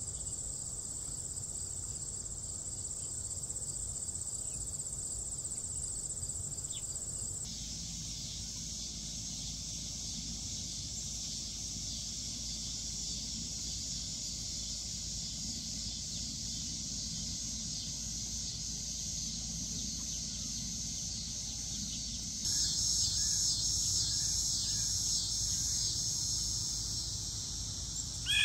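Steady high-pitched chorus of crickets and other insects. It changes character abruptly about a third of the way in and grows louder for the last several seconds.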